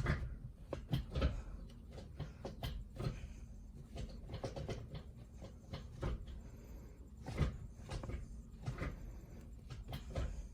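Car gear lever, fitted with a new shift knob, being worked by hand: a scattering of irregular clicks and knocks from the lever and its linkage.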